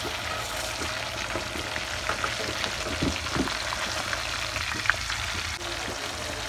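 Masala-coated fish steaks deep-frying in hot oil in a kadhai: a steady crackling sizzle. A metal spatula turns the pieces, with a few knocks against the pan about halfway through and a sharp click a little later.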